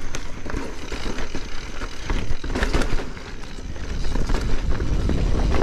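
Mountain bike riding over a dirt trail: steady rolling tyre noise and rumble, with the bike knocking and rattling over rough ground a few times, most noticeably about halfway through.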